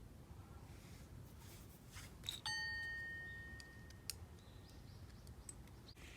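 A single clear ding about two and a half seconds in, ringing and fading over about a second and a half. A few faint clicks come before and after it.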